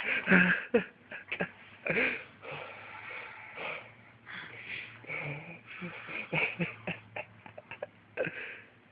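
A man's loud drunken hiccups, over and over at an irregular pace, with wheezing breaths between them.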